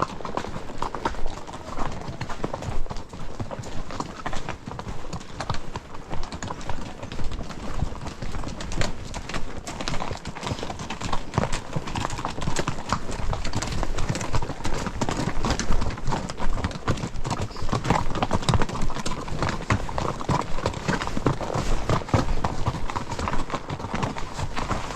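Horse's hooves clip-clopping on a trail as it is ridden, a steady run of uneven hoof strikes.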